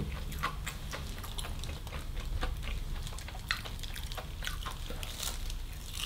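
Soft, scattered small wet clicks and ticks as a piece of fried food is dipped and worked around in a small cup of sauce with a plastic-gloved hand.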